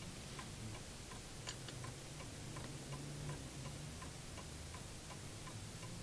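Mechanical clock ticking steadily, about three ticks a second, over a faint low hum.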